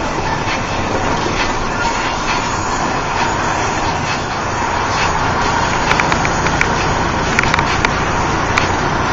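Steady engine drone and road noise of a truck at freeway speed, heard inside its cab, with a few sharp rattles or clicks in the second half.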